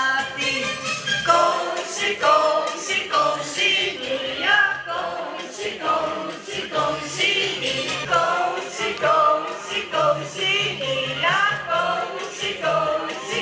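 A woman singing a song into a microphone, amplified through a PA loudspeaker, with musical accompaniment underneath; the notes are held and glide between pitches.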